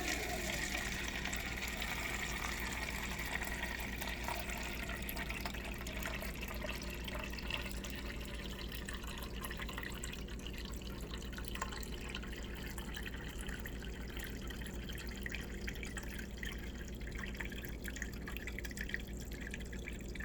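Refrigerator water dispenser running water steadily into a plastic cup, flushing a newly installed water filter.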